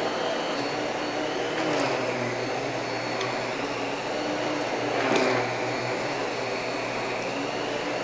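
Miele UniQ S8 canister vacuum cleaner running steadily with its powerbrush head as it sucks up scattered debris from a rug, with a few brief ticks.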